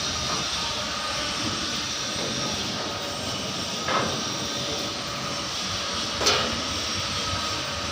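Steady industrial machinery noise at a boiler tube welding worksite, with two brief sharp sounds about four and six seconds in.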